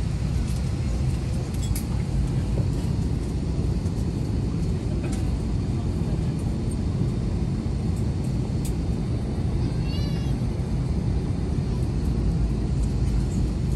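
Steady low rumble of engine and cabin noise inside a passenger airliner on the ground. A brief high wavering chirp comes about ten seconds in.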